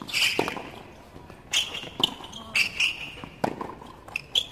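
Tennis ball struck by racquets and bouncing on a hard court during a rally: a string of sharp pops and thuds, spaced about half a second to a second apart.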